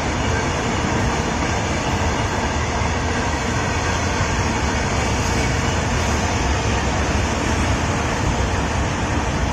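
Steady running noise of a moving passenger train, its wheels running on the rails, even in loudness throughout.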